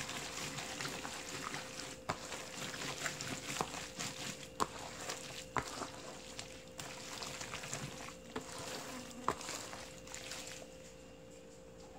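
Gloved hand mixing thick, wet kimchi seasoning paste with sliced radish, onion and green onions in a plastic bowl: a steady wet squishing and rustling with scattered sharp clicks. The mixing stops near the end.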